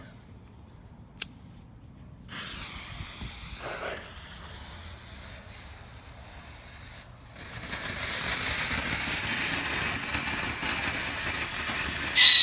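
Piccolo Pete firework hissing and sputtering once lit. The hiss starts about two seconds in, drops out briefly around seven seconds, comes back louder, and breaks into a loud shrill burst near the end.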